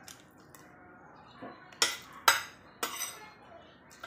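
Metal spoon and fork clinking against ceramic bowls while eating: a soft clink, then three sharp clinks about half a second apart around the middle.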